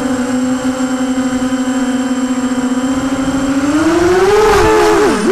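Brushless motors and propellers of an Emax 250-size FPV racing quadcopter whining steadily, recorded close up by the onboard camera. About four seconds in the pitch rises as the throttle goes up, then near the end it drops sharply and climbs straight back as the throttle is cut and reapplied.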